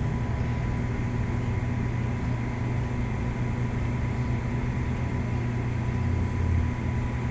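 Engine running steadily: a constant low drone with a thin, steady high whine over it.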